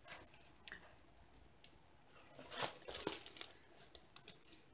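Clear plastic film on a diamond painting canvas crinkling as the canvas is handled, in faint scattered rustles with a louder stretch a little before the middle-to-late part.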